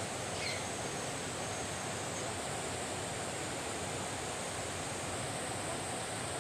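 Steady outdoor rushing background noise with no distinct events, and one faint, short falling chirp about half a second in.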